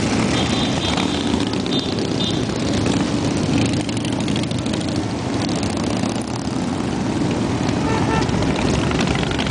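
A long line of cruiser and touring motorcycles riding past one after another, many engines running together in a steady, loud, low drone.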